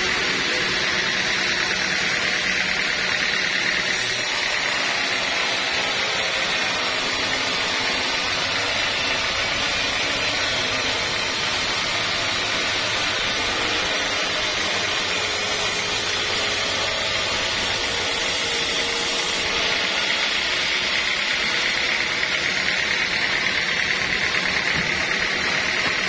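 Band sawmill blade cutting lengthwise through a large teak log, with a steady, even sawing noise over the hum of the mill's motor.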